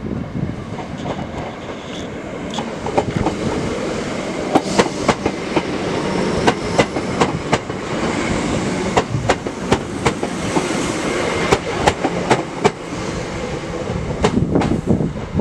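Class 319 electric multiple unit running past along the platform: a steady rumble with its wheels clacking over the rail joints in quick runs of clicks.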